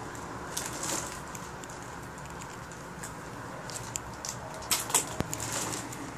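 A clothes hanger being handled and worked on by hand, giving light rustles and scattered clicks, with a burst of sharp clicks about five seconds in.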